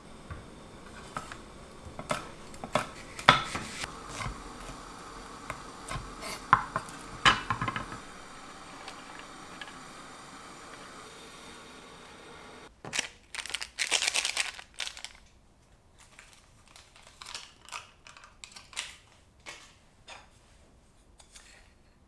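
Kitchen prep sounds: a knife tapping on a wooden cutting board over green onion slices. About thirteen seconds in comes a brief burst of rustling as bean sprouts drop into an enamel saucepan. After that come scattered light clicks and taps of kitchenware.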